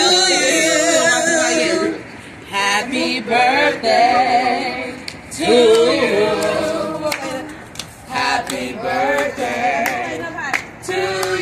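A group of people singing together unaccompanied, in several phrases with wavering pitch, with some hand clapping.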